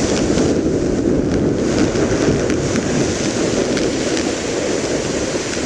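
Strong wind buffeting the microphone: a loud, steady rumbling noise that drowns out the sound of the waves.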